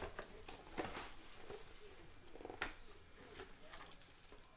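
Hands opening a trading-card box and pulling out its wrapped packs: cardboard and pack wrappers rustling and scraping, with sharp crackles about a second in and again past the middle.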